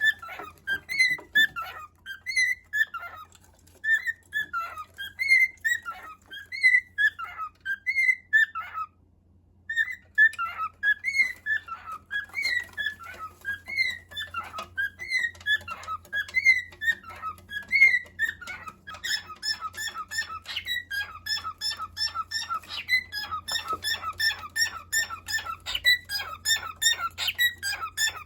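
Cockatiel giving a long run of repeated siren-like calls, each a short falling squeal, about two a second. The calls break off briefly about a third of the way in, then come back faster and denser in the last third.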